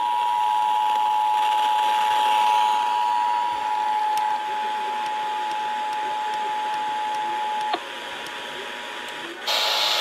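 The Emergency Alert System two-tone attention signal, two steady tones sounding together, heard through an FM radio's speaker with hiss behind it. It cuts off with a click about three-quarters of the way in. Near the end the static jumps louder as the radio is retuned to another station.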